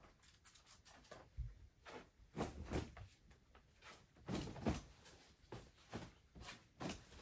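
Curtains being pulled open along their rod: a quiet, irregular series of short swishes of fabric and sliding on the rod, with a soft low thud about one and a half seconds in.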